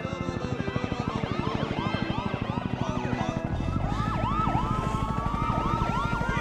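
Several police car sirens going at once, overlapping quick rising-and-falling yelps, with one long, slowly rising wail from about halfway through. A fast, even low throbbing runs underneath.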